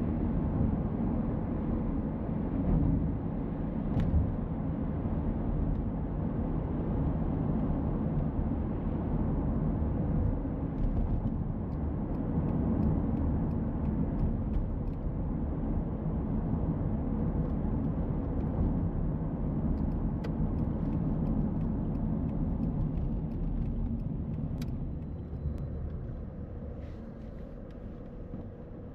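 Car driving along a road: steady low road and engine noise, with a few faint clicks, growing somewhat quieter near the end.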